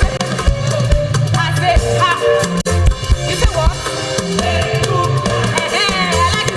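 Live gospel praise music with a steady beat: drum kit and bass under singing voices.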